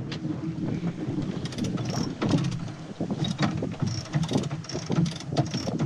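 Wind buffeting the microphone aboard a sailboat under sail, over the rush of water past the boat. From about a second and a half in, many short sharp ticks and taps come through irregularly.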